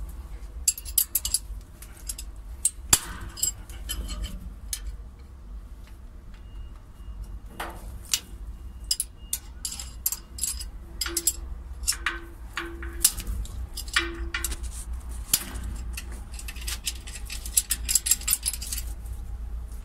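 A steel wrench clicking and clinking against the nut and metal bracket of a crane boom-lock's inductive sensor in quick, irregular taps, over a low steady rumble. The sensor's gap is being adjusted because it sits too far from the steel it detects.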